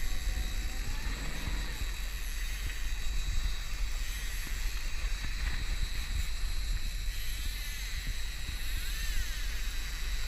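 Yamaha outboard motor running steadily under way, heard as a low rumble mixed with rushing water and wind on the microphone.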